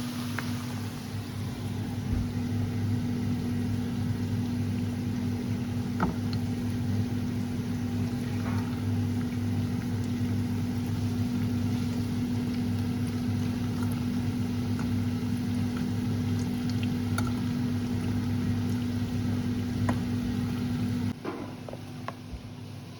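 A small electric kitchen appliance motor running with a steady, even hum and a few light knocks, switched off abruptly near the end.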